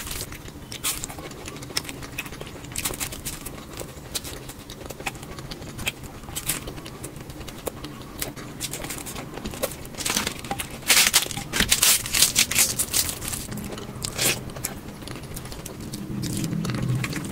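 Close-miked ASMR eating: chewing and crunching food, a string of sharp clicks and crackles with a run of louder crunches a little past the middle, and a low hum near the end.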